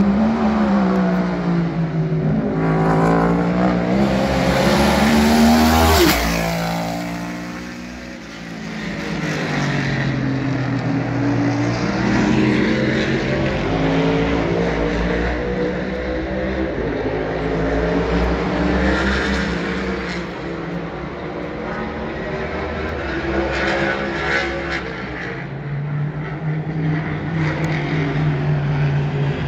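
NASCAR Next Gen Cup cars' V8 engines running at racing speed, their pitch repeatedly climbing and falling as they accelerate, shift and slow. One car passes close about six seconds in, the loudest moment, its pitch dropping sharply as it goes by.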